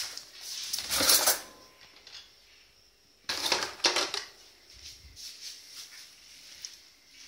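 A drawer being pulled open and a hand rummaging through it, with small metal objects clattering and clicking. The clatter comes in two short spells, about a second in and again about three and a half seconds in, as a pair of scissors is taken out.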